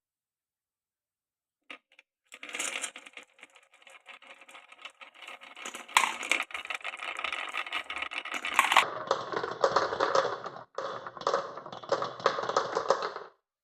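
Glass marbles rolling and clattering through a wooden marble run, with frequent sharp clicks as they strike and drop between track pieces. It starts with a single click about two seconds in, changes abruptly about nine seconds in, and stops suddenly shortly before the end.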